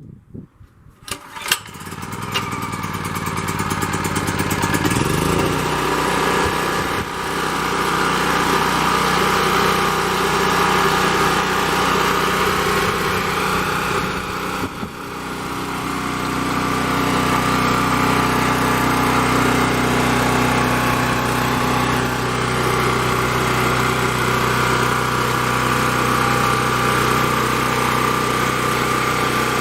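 Champion 3500-watt portable generator's 196cc single-cylinder engine pull-started with the choke on after sitting about two months, catching on the first pull and then running steadily. The running briefly dips in level about halfway through before settling again.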